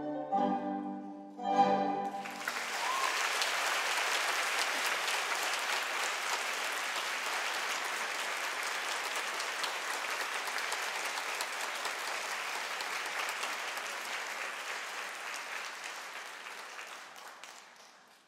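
Classical ballet music ends on a last loud chord about two seconds in, followed by steady audience applause that fades away near the end.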